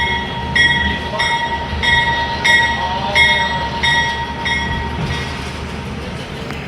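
A railroad bell ringing in steady strokes, about one and a half a second, over the low rumble of a train. The bell stops about four and a half seconds in.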